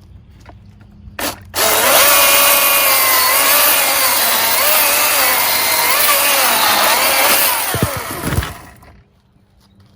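Milwaukee M18 cordless electric chainsaw blipped briefly about a second in, then cutting through wood for about seven seconds, its motor whine wavering as it loads in the cut, then winding down near the end. This is a test cut on a freshly tensioned chain.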